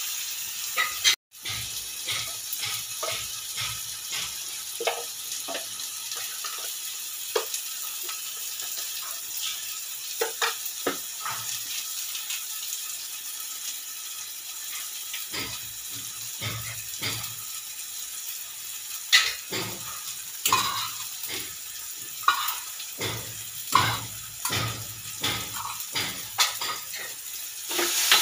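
Egg bhurji frying in oil in a steel saucepan, a steady sizzle, with a metal spoon scraping and clinking against the pan as it is stirred; the stirring becomes more frequent in the second half. The sound cuts out briefly about a second in.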